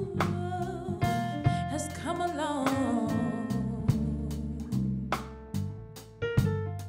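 Live soul/R&B band playing between sung lines: bass guitar notes, sustained keyboard chords and drum-kit and cymbal hits, with a woman's sung voice about a second in.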